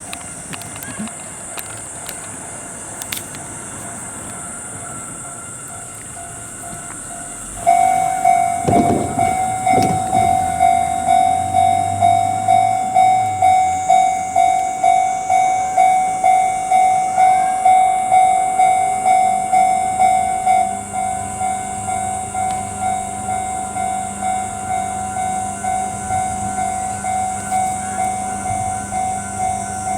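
A Japanese level-crossing warning bell starts suddenly about eight seconds in and rings in an even, steady 'kan-kan' rhythm, about two strokes a second. This signals an approaching Ohmi Railway train. A steady high hiss sits under it, and a low hum joins near the end.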